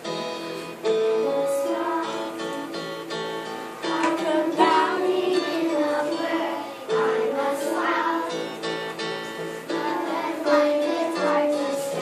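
Children singing a song over instrumental accompaniment, in long held notes.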